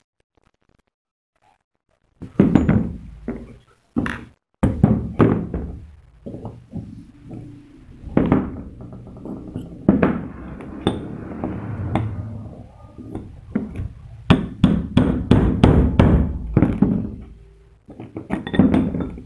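Hammer blows driving a small sheet-metal piece down into a steel die on a tabletop: dull strikes at an uneven pace, quickening into a fast run of about four taps a second about three-quarters of the way through, seating the piece in the die.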